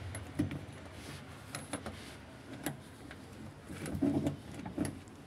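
Scattered light clicks and knocks of hands handling the drain hose and fittings at the back of a washing machine, with a small cluster about four seconds in.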